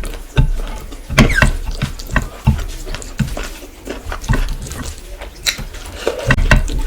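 Close-miked eating sounds: chewing and wet mouth smacks in an irregular run of clicks.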